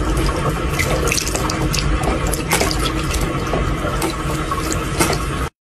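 Tap water running into a bathroom sink in a steady splashing stream, with irregular small splashes as a cat drinks from the flow. It cuts off suddenly near the end.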